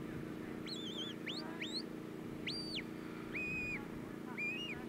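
Shepherd's whistle commands to a working sheepdog: about six short, clear whistles, some sweeping upward, some held level and then dropping, one wavering, and one held lower in pitch. A steady low hum runs underneath.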